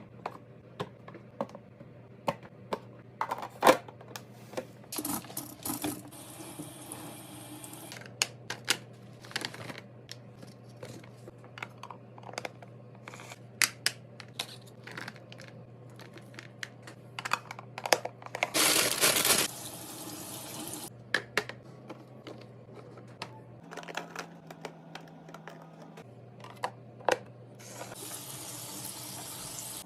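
Items and containers being handled and set down while a fridge is restocked, giving a run of sharp taps, clicks and clinks, with three short stretches of hissing noise, over a steady low hum.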